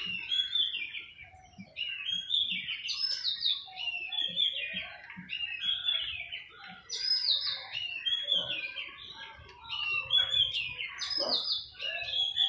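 Small birds chirping in a rapid, almost unbroken string of short high notes.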